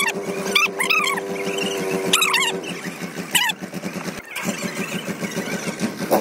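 Mahindra 575 DI tractor's four-cylinder diesel engine running at high revs under load, chained up to help pull a bogged sand trolley. Its steady tone drops away about two and a half seconds in. Short high-pitched squeals rise and fall several times over the first half.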